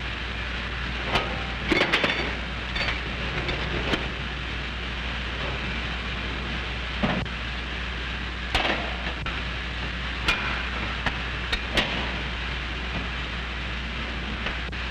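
Steady hiss and hum of an old film soundtrack, with scattered short knocks and rustles of coats and a paper note being handled, the busiest cluster about two seconds in.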